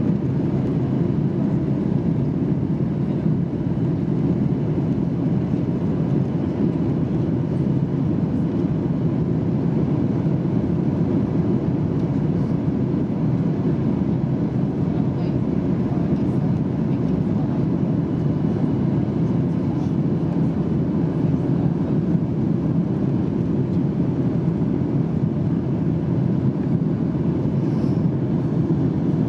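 Steady in-cabin noise of a Boeing 737-800 on approach, heard from a window seat over the wing: rushing airflow and its CFM56-7B turbofan engines making a low, even rumble that does not change.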